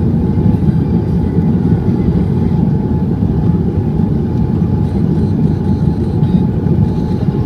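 Steady low rumble of a Boeing 787-9's engines and airflow heard inside the passenger cabin, with a faint steady hum above it.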